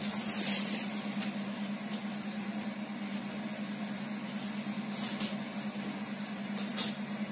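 A steady low hum over a faint even hiss while a pot of thickening milk-and-rice pudding simmers on the stove. There are two brief faint clicks, about five and seven seconds in.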